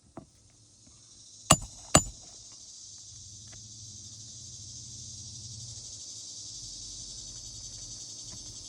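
Two sharp hammer knocks, about half a second apart, as nails are driven with a roof snake under a shingle. A steady high-pitched insect buzz then swells up and cuts off near the end.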